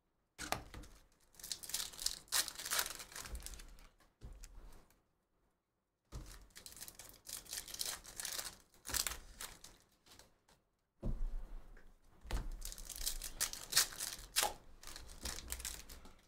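Baseball trading-card pack wrappers being torn open and crinkled, with cards handled in the hand, in three stretches broken by short silent gaps.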